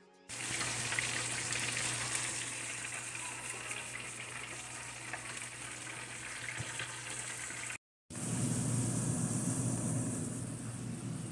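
Sliced steak and green peppers frying in a skillet: a steady sizzling hiss with a low hum underneath. It cuts out briefly about eight seconds in, then resumes.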